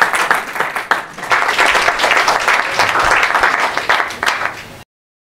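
Audience applauding, a dense run of many hands clapping. It stops abruptly near the end.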